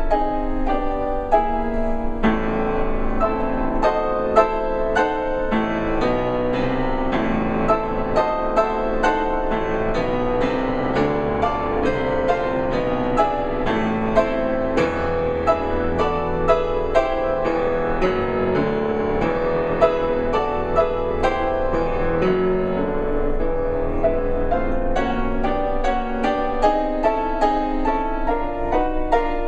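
Background piano music with a quick, steady run of notes.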